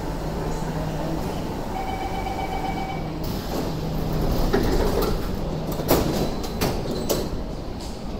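Singapore MRT train and platform screen doors closing at a station. A steady warning tone sounds for about a second over the hum of the standing train. Then the doors slide shut with a run of knocks and clunks, the loudest a little over halfway through.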